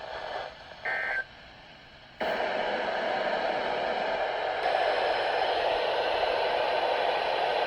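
A brief electronic chirp about a second in, then from about two seconds in a steady hiss of radio static that starts abruptly and is about as loud as the broadcast voice.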